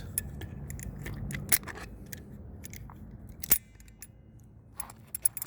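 Metal pliers clicking and scraping as they grip a bolt stuck in a tire's tread and work it loose: a string of sharp clicks, the loudest about one and a half and three and a half seconds in.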